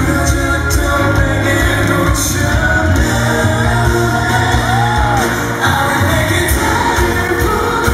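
A male lead singer singing live over a full pop-rock band.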